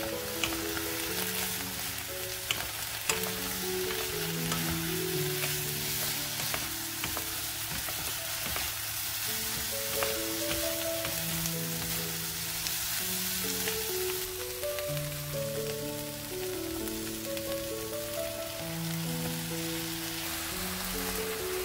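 Diced potatoes and onions sizzling in oil in a pan as they are stir-fried with wooden spatulas in soy sauce and oyster sauce, with a few light spatula taps near the start. Soft background music plays along.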